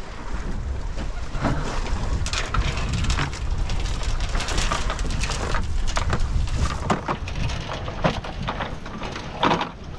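Wet shrimp trawl netting being hauled hand over hand over a boat's gunwale, with steady crackling rustle and splashing and dripping of water off the net. A low wind rumble on the microphone runs underneath.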